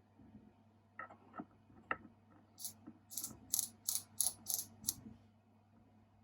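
A small metal mechanism being worked by hand. There are three light clicks, then a quick run of about seven short, scratchy ratchet-like strokes, roughly three a second, that stop about five seconds in.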